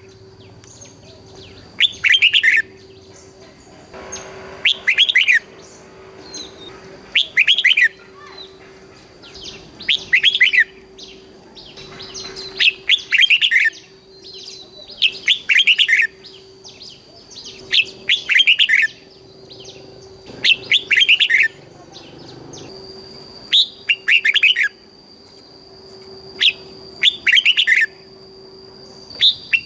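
Red-whiskered bulbul singing: short, bright whistled phrases repeated about every two and a half to three seconds, some given as quick doubles.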